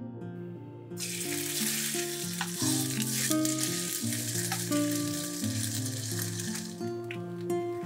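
A slice of ham sizzling in hot vegetable oil in a nonstick frying pan. The sizzle starts suddenly about a second in and fades near the end, over soft plucked-guitar background music.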